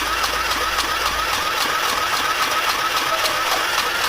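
Mini electric sewing machine running at a steady speed: a wavering motor whine with a fast, even needle clatter.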